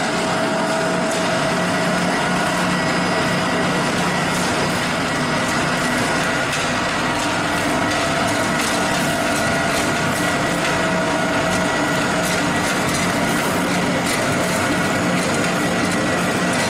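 Wood pellet mill running steadily under load, a continuous mechanical drone with a few held hum tones, and a scatter of small ticks through the middle and later part.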